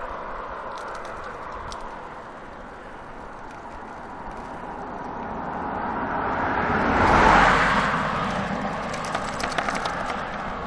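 A car passing on the road, its engine and tyre noise swelling to the loudest point about seven seconds in and then fading, over a steady hiss of wind and road noise.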